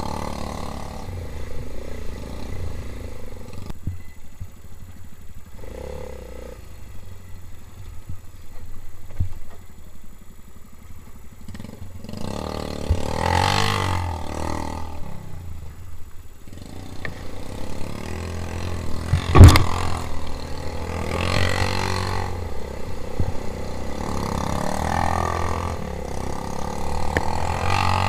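Four-stroke quad bike engine running, surging louder several times as the throttle is opened, with one sharp knock about two-thirds of the way through that is the loudest moment.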